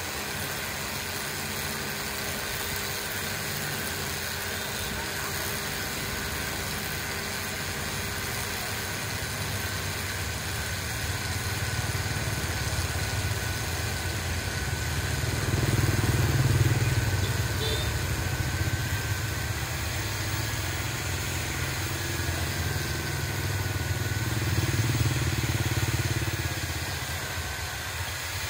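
Low, steady engine rumble of a motor vehicle, swelling louder twice, about halfway through and again near the end.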